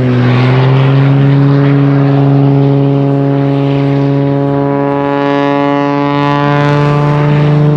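Propeller aircraft engine droning at a steady pitch, held constant through the whole stretch.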